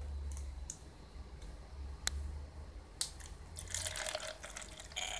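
Water poured from a plastic bottle splashes into the tester's plastic container, after two sharp clicks. Just before the end, the tester's piezo buzzer starts a steady high-pitched buzz as the water conducts between its two electrodes.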